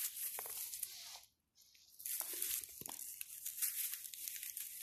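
Leaves and dry plant stalks rustling and crackling softly, with a few faint clicks, as a cat rolls in a celery patch and sprigs of celery are handled. The rustle drops out for under a second about a second in, then resumes.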